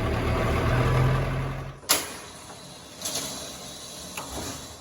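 A vehicle engine running that cuts off abruptly just under two seconds in, followed by a sharp click and quieter clunks.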